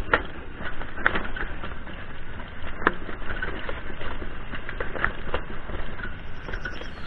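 A mountain bike rattling and clattering over a loose rocky dirt track, with irregular sharp knocks from the frame and parts as the wheels hit stones, over a steady low rumble of wind noise.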